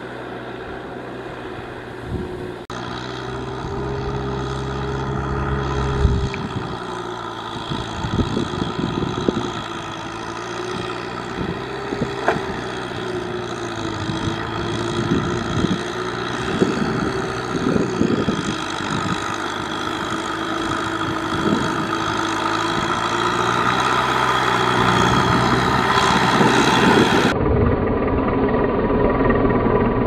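Farm tractor's diesel engine running under load as the tractor works through deep mud, its pitch wavering a little, with repeated knocks and clatter from the wheels and implement.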